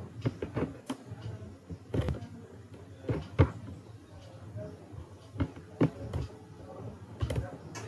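Irregular clicks of a computer mouse and keyboard, about a dozen sharp taps spread unevenly, over a faint low background hum.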